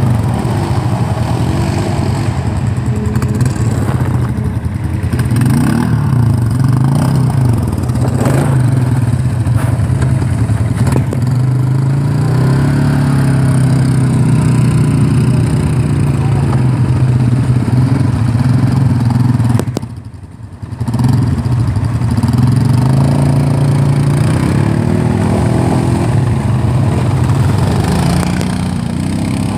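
Several ATV (quad bike) engines running close by, their pitch rising and falling as they rev and ease off. The sound drops out briefly about two-thirds of the way through.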